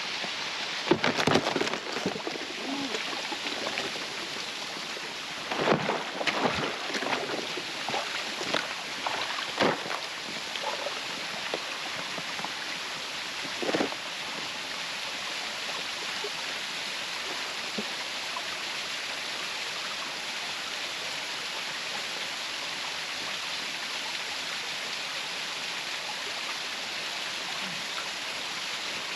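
Waterfall rushing steadily, with irregular knocks now and then through the first half.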